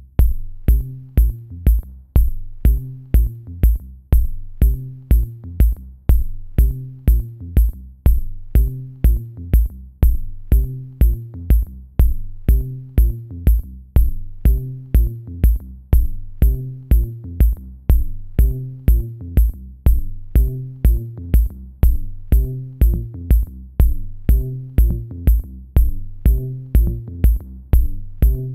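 Electronic background music with a steady drum-machine beat of about two beats a second over a repeating bass line.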